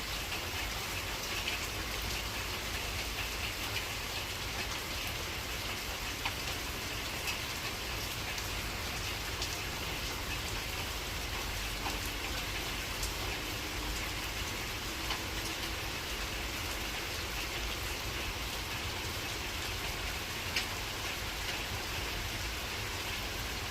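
Heavy rain falling steadily, a continuous even hiss with scattered louder drops ticking now and then.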